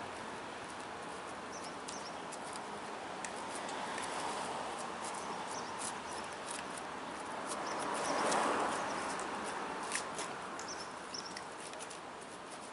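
Street ambience: a steady hiss of traffic that swells as a vehicle passes about eight seconds in, with scattered light clicks and scuffs.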